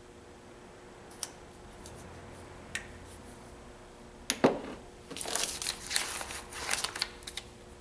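A few small clicks, then a sharp knock a little past four seconds in as glass shaker bottles are handled on the table. After that comes a couple of seconds of paper crinkling and rustling as a sheet of printed peel-off labels is handled.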